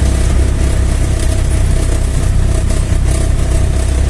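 Motor vehicle's engine running steadily in gear as it climbs a short slope, with a constant low rumble.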